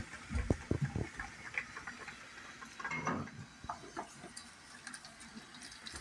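Scattered clinks and knocks of a wooden twirling whisk against a steel soup pot, with a few duller thumps in the first second, as the whisk is set into the boiled nettles.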